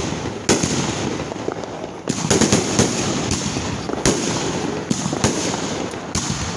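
Fireworks going off: about a dozen sharp bangs in irregular succession, several bunched together around the middle, over a steady crackle.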